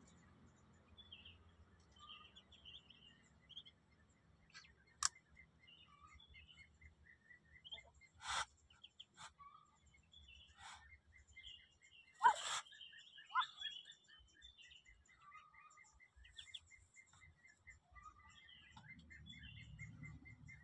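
Newly hatched Muscovy ducklings peeping softly in the nest: scattered short, high chirps, with a few sharper, louder sounds near the middle.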